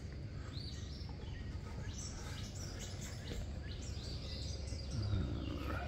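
Several birds chirping and singing in a steady stream of short, sliding calls, over a steady low rumble of outdoor background noise.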